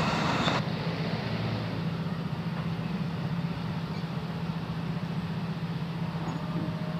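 The last of a passing electric commuter train's rumble, cut off abruptly about half a second in, then a steady low mechanical hum.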